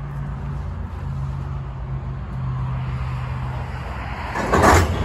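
Covered hopper cars rolling slowly together over a low steady hum, then their knuckle couplers slam together in one loud clank about four and a half seconds in as the string couples up.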